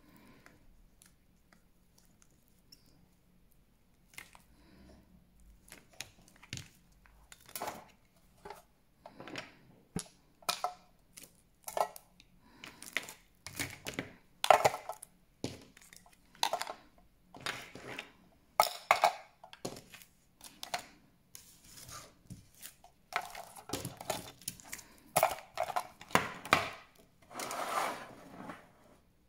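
Irregular clicks, clinks and knocks of small glass and plastic nail-polish bottles and cosmetic pots being handled on a table, sparse at first and busier after about seven seconds, with brief rustling near the end.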